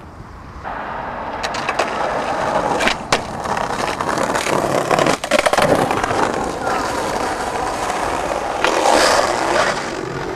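Skateboard wheels rolling over rough concrete paving, a steady gritty rumble that grows louder near the end, with a few sharp clacks along the way.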